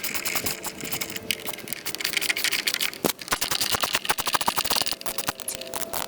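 Ratchet wrench clicking rapidly with small metallic rattles, as the bolts holding the ignition coil are turned out.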